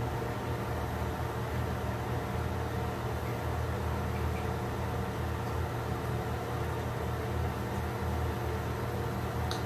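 Steady low machine hum with a hiss, like a running fan or motor.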